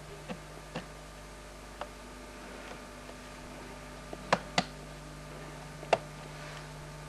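A steady low hum with a handful of short, sharp clicks and knocks scattered through it, the three loudest in the second half.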